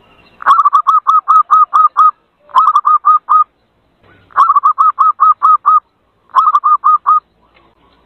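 Zebra dove (perkutut) calling: four quick runs of short, sharp cooing notes, about six a second, with brief pauses between runs, played as a lure call for wild zebra doves.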